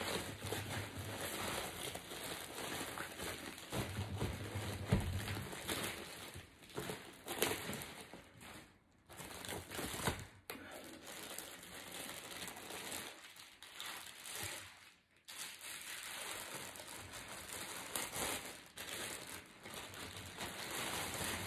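Bubble wrap and plastic wrapping crinkling and rustling as they are handled and pulled off a packed object, with a few short pauses.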